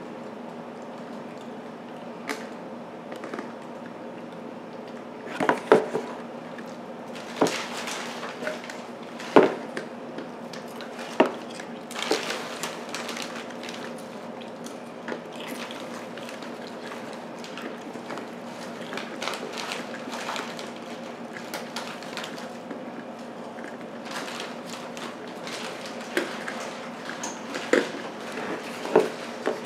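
Irregular knocks, taps and light clatter as a wall clock is handled and moved against its cardboard box, over a steady low hum.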